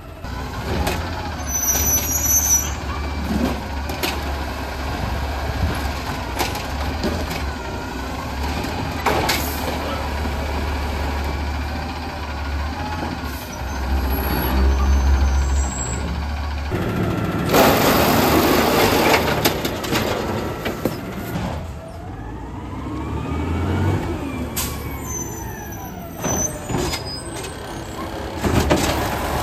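Garbage trucks' diesel engines running steadily, with a loud burst of hissing air about two-thirds of the way through, and mechanical clatter from the trucks' working.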